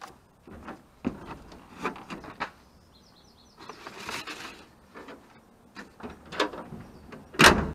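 Scattered light knocks and rustles, with a short bird twitter about three seconds in and one louder knock just before the end.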